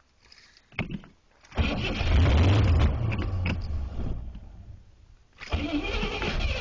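1977 Oldsmobile Delta 88's carbureted 350 V8 catching on a cold start about a second and a half in and running, then sagging as if about to stall before picking up again near the end. It will start but won't stay running in the deep cold, which the owner puts down to frozen parts.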